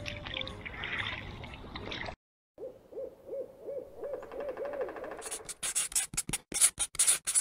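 Lake water lapping at a pebble shore for about two seconds, cut off abruptly. Then comes a logo outro sound effect: a run of about seven short hooting tones, roughly three a second, followed by a rapid string of sharp percussive hits.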